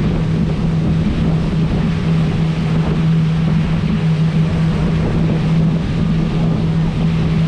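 Tour boat's engine running at a steady hum, with wind on the microphone and water rushing past the hull.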